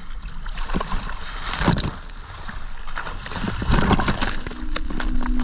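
Choppy sea water sloshing around a camera held at the surface, with a splash about two seconds in and heavy splashing around four seconds in as a speared mahi-mahi thrashes at the boat's side. Music comes in near the end.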